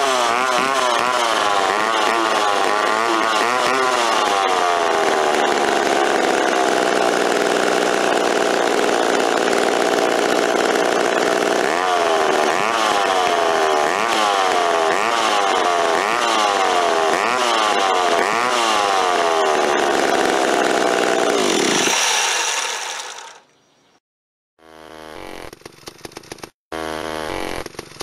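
Two-stroke McCulloch chainsaw running, its engine revved up and down in quick blips, then held at high revs for several seconds, then blipped again about once a second. About three-quarters of the way in the engine winds down and stops.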